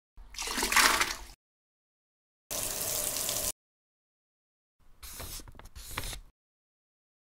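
Three short added sound effects cut in with dead silence between them: a watery gush that swells and fades about a quarter-second in, a flat hiss lasting about a second, and near the end a scratchy noise in two strokes.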